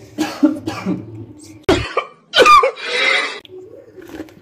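A person coughing in a short fit: a string of harsh coughs over about three and a half seconds, the loudest in the second half, with some throat clearing.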